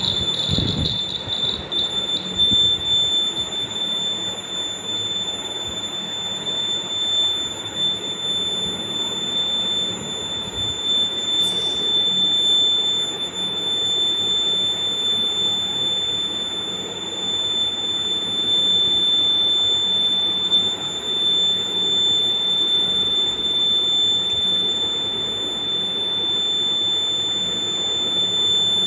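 Small electronic buzzer sounding one continuous high-pitched beep, switched on at the start, when the circuit is closed and the LED lights. There is a short low thump just after it starts.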